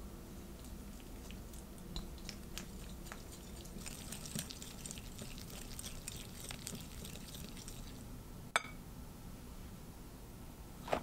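Wire balloon whisk beating soft butter in a glass bowl: soft squishing and scraping with light ticks of the wires against the glass, busiest around the middle, and one sharp click late on.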